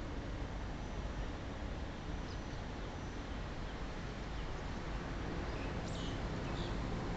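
Steady background rumble and hiss with no pounding, and a few short bird chirps about five to six seconds in.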